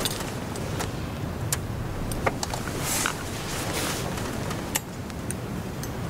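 Wind rumbling on the microphone, with scattered light clicks and taps.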